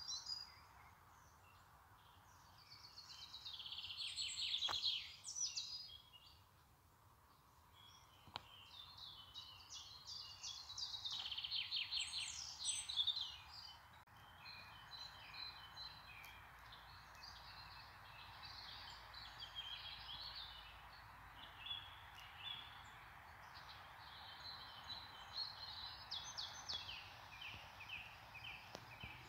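Birds singing, with chirps and rapid trills that come loudest a few seconds in and again around ten seconds in, over a faint steady hiss.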